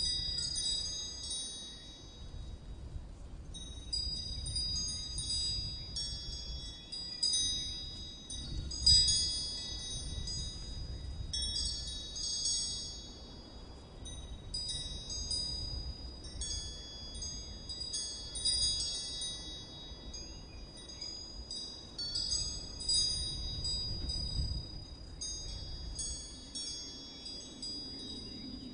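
Wind chimes ringing at irregular moments, many high bright tones overlapping and dying away, over a low uneven rumble.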